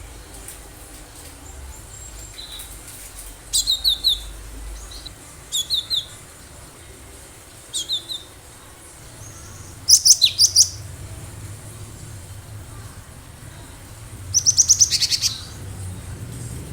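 Cinereous tit (gelatik batu) singing: short phrases of three to five quick, high, repeated notes every two seconds or so, the loudest about ten seconds in, then a faster run of many notes near the end.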